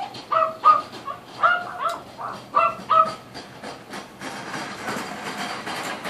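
A run of short, high, repeated calls, about three a second, stops about three seconds in. From about four seconds in a shopping cart loaded with cans and bottles rattles steadily as it is pushed closer along the street.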